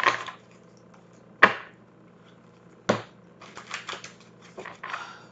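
A deck of tarot cards being handled and shuffled: three sharp snaps about a second and a half apart, then quicker runs of light card clicks near the end.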